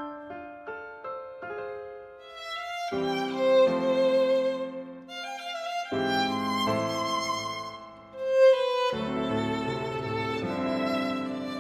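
Background music: a few piano notes give way, about three seconds in, to a violin melody of long held notes with vibrato over accompaniment.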